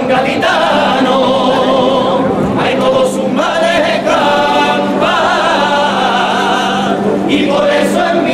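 Cádiz carnival comparsa, a male chorus, singing together in several voice parts.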